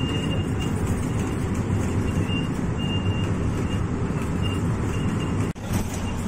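Hino RK8 R260 bus's diesel engine and road noise heard from inside the moving coach, a steady low rumble. It dips out briefly about five and a half seconds in, then resumes.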